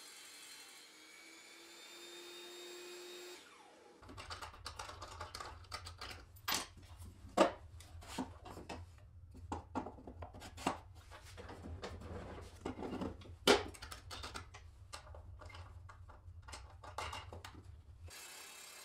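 Woodworking in a workshop: a motor hums steadily while a string of sharp knocks and clicks of tool work on wood comes through, starting about four seconds in and stopping shortly before the end.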